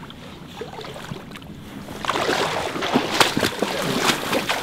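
Dry reeds and tall marsh grass rustling and crackling as a person pushes through them on foot, starting suddenly about halfway in and getting louder.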